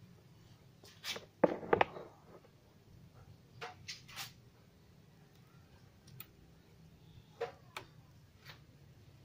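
Scattered light clicks and knocks from objects being handled at a repair bench, the loudest a short cluster between about one and two seconds in, over a faint low steady hum.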